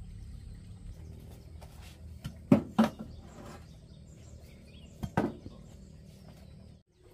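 Wooden-handled hoes knocking as they are set down on a dirt floor against a bamboo wall: two sharp knocks about two and a half seconds in, then another pair about five seconds in.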